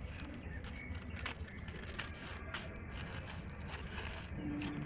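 Light metallic jingling and rattling, with scattered sharp clicks, as a toy bullock cart with its load is moved along; the loudest click comes about two seconds in.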